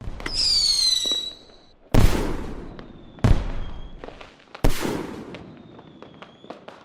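Fireworks: a whistling firework whose pitch falls slightly for just over a second, then three loud bangs about a second and a half apart, each dying away slowly, with small scattered crackles.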